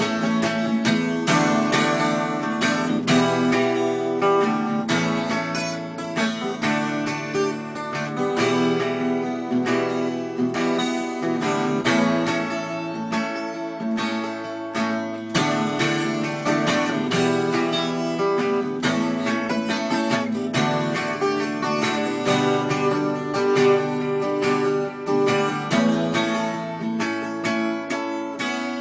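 Acoustic guitar strummed steadily in a continuous chord pattern, with no voice: the instrumental close of a folk song.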